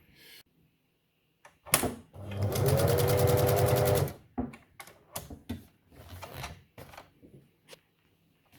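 Singer 7104 electric sewing machine running for about two seconds, stitching rapidly, then stopping. A sharp click comes just before it starts, and several short clicks and knocks follow after it stops.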